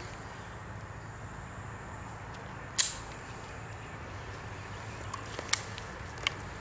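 A single gunshot from an AR-15 pistol, a sharp crack about three seconds in, followed by a few fainter clicks over a steady low background hum.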